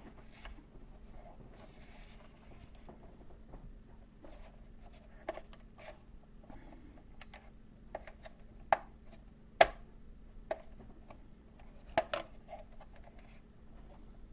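Sharp hard-plastic clicks and light knocks, a handful of them spread out over quiet rubbing, as a plastic Star Wars A-wing toy ship is handled; the loudest click comes about two thirds of the way through.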